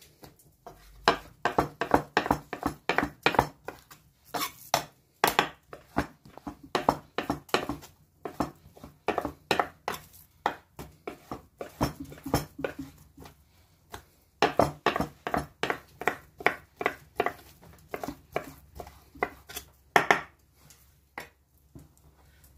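Knife dicing raw beef into cubes on a wooden cutting board: a steady run of blade knocks against the board, about two to three a second, broken by a few short pauses.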